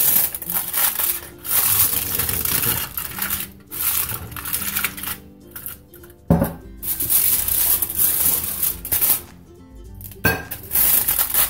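Aluminium foil crinkling and scrunching as it is pressed over glass dessert cups, in spells broken by short pauses, with a couple of sharp knocks as the glass cups are handled on a plate.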